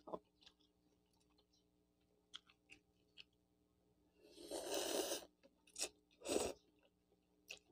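A person slurping soupy noodles off chopsticks: one long slurp about four and a half seconds in and a shorter one near six and a half seconds, with faint mouth clicks and chewing between them.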